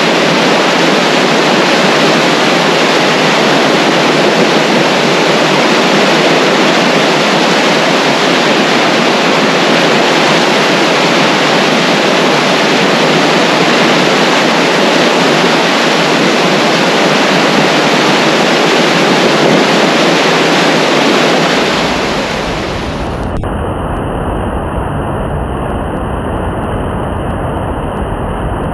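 River Deel in flood rushing under a bridge: a loud, steady noise of fast water. About 22 seconds in the sound changes abruptly to a duller, deeper rumble with the hiss gone.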